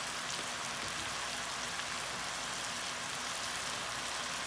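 Chicken pieces sizzling in hot oil in a pan, a steady crackling hiss.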